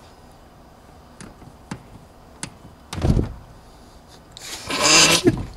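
Wire strippers clicking a few times on amplifier wire, then a heavy thump against the car's interior about three seconds in and a louder rasping scrape near the end.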